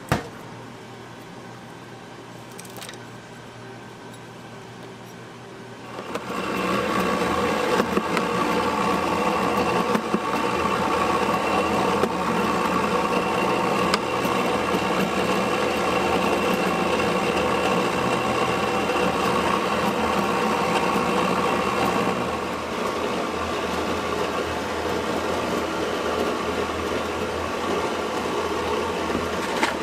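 Bingsu snowflake ice machine running, a steady mechanical whir with a hum, as it shaves ice into fine snow-like flakes. It starts about six seconds in after quiet room tone and drops a little in level about two-thirds of the way through.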